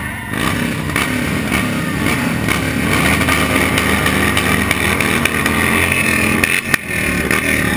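Several cruiser motorcycles running at low speed close by, a loud, steady engine sound with a slight rise about a second in.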